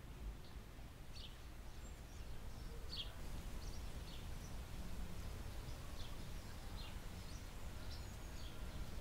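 Outdoor ambience: scattered short, high bird chirps, about a dozen, over a low steady rumble.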